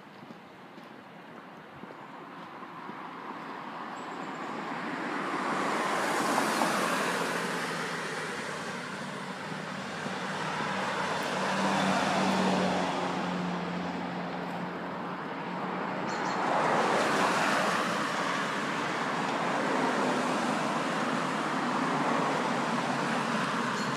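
Several cars passing one after another on a road, their tyre and engine noise swelling and fading as each goes by.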